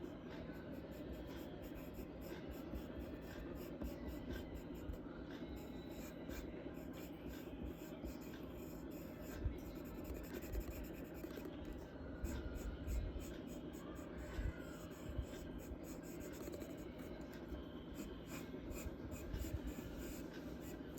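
Charcoal scratching and rubbing on drawing paper in many quick, repeated strokes, over a faint steady hum.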